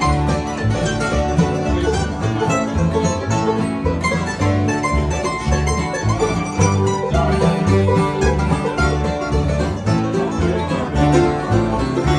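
Acoustic bluegrass jam: a five-string banjo picking rolls with strummed acoustic guitars and mandolin, over an upright bass playing evenly spaced low notes.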